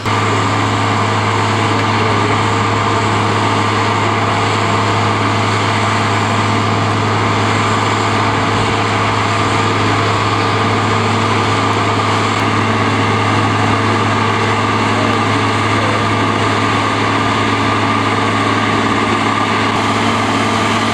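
Diesel engine of a Mount Washington Cog Railway biodiesel locomotive running steadily, a loud, even, low drone with no change in speed.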